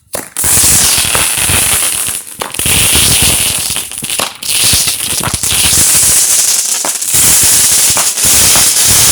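A 19-shot 200-gram consumer firework cake (Phantom Fireworks Mighty Cobra) firing: it starts suddenly just after the fuse burns down, then gives a loud, constant hissing crackle with a shot going off about once a second.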